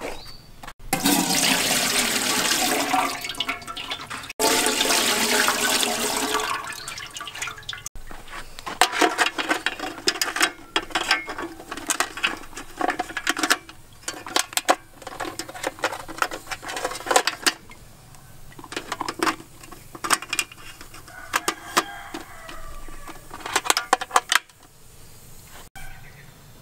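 A loud rush of running water for about six seconds, in two stretches. Then many sharp clacks and knocks as a king crab's hard shell and spiny legs are packed into an aluminium steamer pot.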